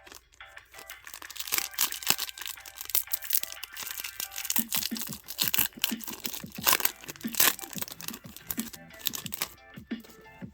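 Foil Pokémon booster pack wrapper crinkling and tearing as it is opened by hand, a dense run of crackles, over quiet background music.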